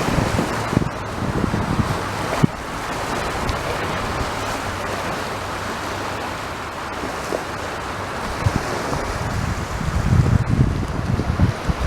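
Sea surf washing onto a beach, a steady rushing hiss, with wind buffeting the microphone in gusty low rumbles at the start and again toward the end.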